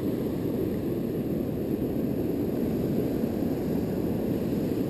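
Steady low rumble of wind buffeting the microphone, with surf breaking on the beach.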